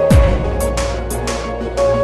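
Electronic background music: a deep bass note drops in pitch right at the start, under held notes and a steady hi-hat beat.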